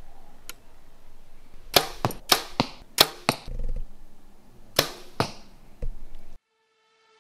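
Bowtech Chris Kyle compound bow being shot repeatedly: sharp snaps of the string on release and thwacks of arrows striking, several of them in quick pairs. The sound cuts off suddenly near the end, leaving a faint steady musical tone.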